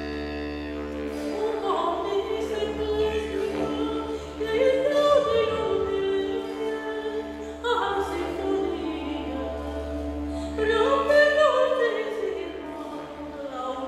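Wordless singing in four long, gliding phrases over the steady low drone of a didgeridoo.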